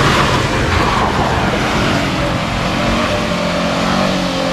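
Pickup truck's engine running steadily under load as it drives across rough ground, over a continuous noisy rush.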